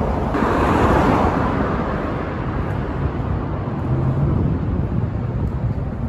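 Road traffic noise from the freeway overhead and the road beside it: a steady low rumble, swelling as a vehicle passes about a second in.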